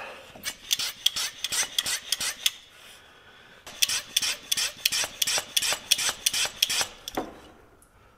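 Hand pump of a cooling-system pressure tester being worked on a truck's coolant surge tank, about three strokes a second, with a short pause about three seconds in and the strokes ending near the end. The cooling system is being pressurized to find a coolant leak.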